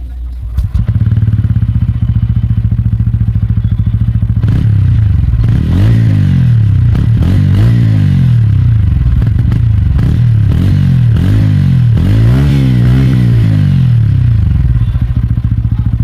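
TVS Ronin 225's single-cylinder engine starting about half a second in and idling for a few seconds, then revved over and over in quick throttle blips, roughly one a second, the exhaust note rising and falling with each. Heard close up at the muffler outlet.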